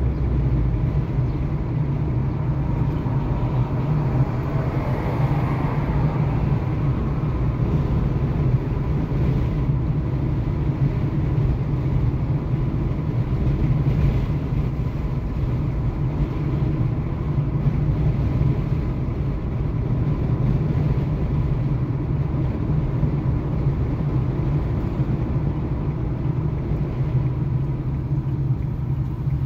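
Steady engine and tyre rumble heard inside the cabin of a car cruising on an open road, with a brief swell in the hiss about five seconds in.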